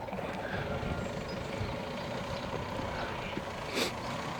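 Motor vehicle engine running, a steady low rumble, with a short hiss near the end.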